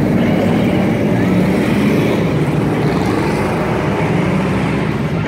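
A field of street stock race cars running at racing speed, many engines blending into one loud, steady din.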